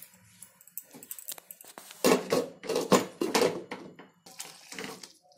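Glass lid set onto a metal kadai and a silicone spatula knocked against it: a cluster of clattering knocks about two seconds in, with lighter clicks afterwards.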